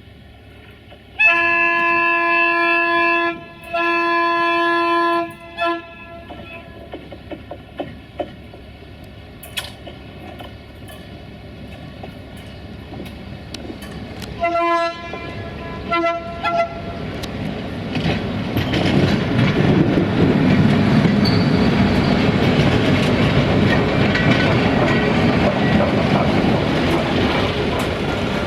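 A train horn sounds two long blasts and a short one, then three short blasts about halfway through. The train then approaches and runs past, its wheel and engine noise growing steadily louder with clickety-clack on the rails.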